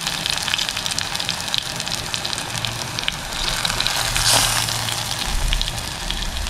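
Oil-rich stuffed brinjal gravy sizzling and crackling in a steel pot, its oil separated out at the end of cooking, with a louder scrape as a spoon stirs through it about four seconds in.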